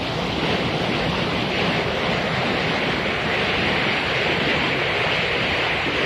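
Waterfall in flood: a steady rush of white water pouring between rocks. The stream is swollen and running fast after days of heavy rain.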